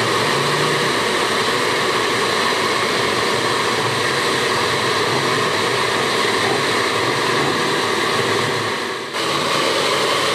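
Off-road 4x4's engine running steadily under load, with a dense rushing noise over it; the sound dips sharply for a moment about nine seconds in, then carries on.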